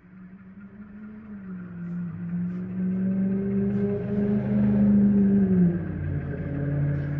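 Sound-equipped HO scale model of a GE B23-7 diesel locomotive, its speaker playing a diesel engine hum. The hum grows louder over about five seconds, then drops in pitch and falls back about six seconds in.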